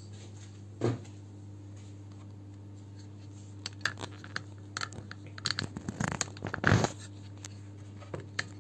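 Scattered soft taps, scrapes and rustles of handling at a painting table: a paintbrush in a small paint pot and paper. They are busiest in the middle, with the loudest one near the end, over a steady low hum.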